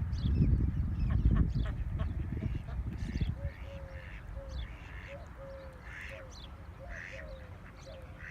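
Birds calling repeatedly, roughly once a second, with softer chirps between. A heavy low rumble fills the first three seconds.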